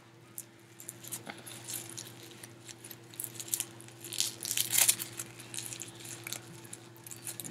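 Small plastic toy and its wrapping being handled and crinkled by a child's hands: irregular crackles and clicks, loudest about four to five seconds in, over a steady low hum.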